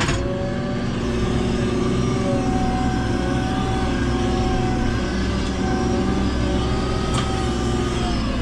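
Diesel engine of a JCB 3CX backhoe loader running steadily while it works, its pitch wavering slightly. A sharp click sounds at the start and another about seven seconds in.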